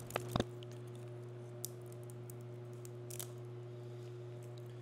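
3D-printed PLA support material snapping off a printed spiral track under pliers: two sharp snaps in quick succession just after the start, then a few faint clicks and cracks. A steady low hum runs underneath.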